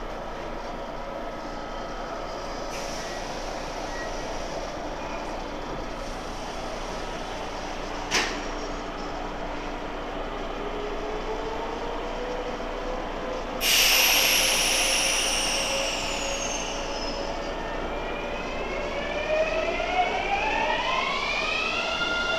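Kintetsu electric commuter train at the platform: a steady hum from its equipment, a single knock about 8 seconds in, and a sudden loud hiss of air with a falling whistle about 14 seconds in as the brakes release. The motors then start a whine of several tones rising in pitch as the train pulls away, levelling off near the end.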